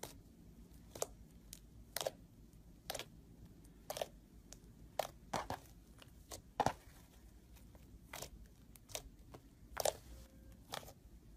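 Crunchy slime being pressed and worked by hand, giving short, sharp crackles at irregular intervals, roughly one a second, with a few louder pops about two-thirds of the way through.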